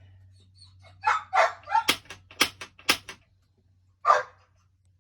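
A Norcold RV fridge's piezo spark igniter clicking three times, about half a second apart, as it tries to light the gas burner. A dog barks a few times around the clicks, over a faint low hum.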